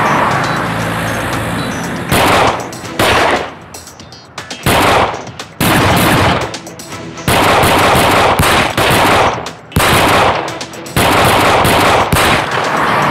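A car drives up over the first two seconds. Then rapid automatic gunfire starts in long bursts separated by short pauses, as in an exchange of fire.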